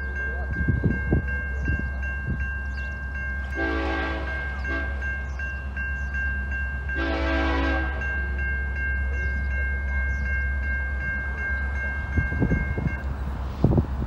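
Railroad crossing warning bell dinging rapidly and evenly, then stopping a second or so before the end; two locomotive horn blasts sound over it, about four and seven seconds in, the first the longer. A low steady rumble runs underneath.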